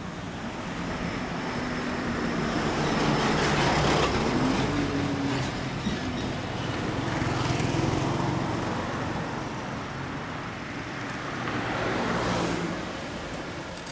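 Kawasaki Mach II S2 (350SS), an air-cooled two-stroke triple breathing through Rooney expansion-chamber exhausts, running and revved up and let fall back three times, about four seconds apart.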